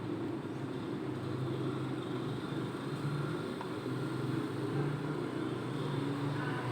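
Steady low rumble of motor vehicle engines, with low hums that shift and come and go.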